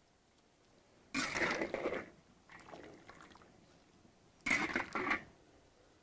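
A ladle scooping braised pork intestines and blood tofu out of a wok of broth and tipping them into a bowl. Two scoops about three seconds apart, with a fainter one between them.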